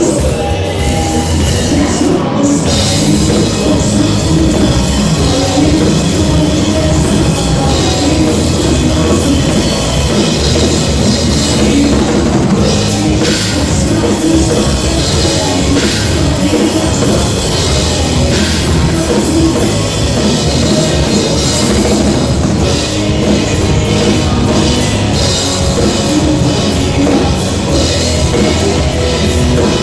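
Rock band playing loud and steady, the drum kit driving it under distorted instruments.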